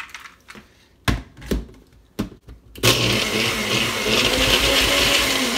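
NutriBullet personal blender crushing ice. A few knocks as the ice-filled cup is handled and set on the motor base, then about three seconds in the motor starts and runs loud and steady, grinding the ice.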